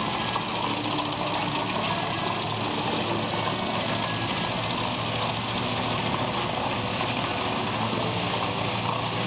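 Wood chipper running with a steady mechanical noise.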